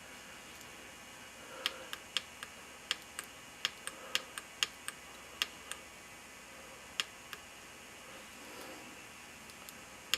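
Small tactile pushbuttons on an LCD keypad shield clicking: a quick, uneven run of about fourteen presses over some four seconds, then two more a little later.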